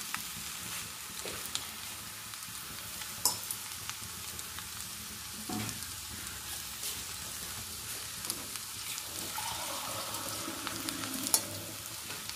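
Diced potato sizzling in a hot black iron kadai just after a splash of water has gone in, stirred with a slotted steel spatula that clicks and scrapes against the iron. Two sharp metal clinks stand out, about three seconds in and near the end.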